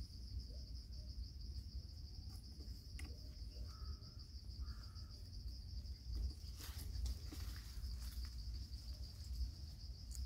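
A steady high-pitched chorus of insects chirring in the forest, with a low rumble underneath. There are a few faint short calls about four seconds in, and brief rustles later.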